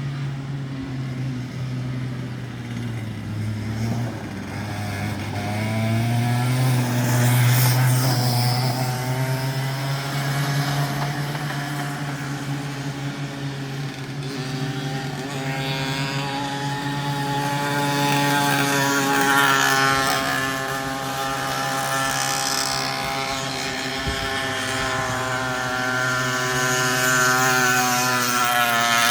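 Go-kart engine running, its pitch dipping a few seconds in and then rising again as it speeds back up.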